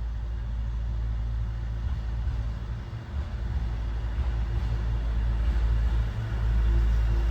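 Motor vehicle running, a steady low rumble that grows somewhat louder near the end, with a faint hum in the second half.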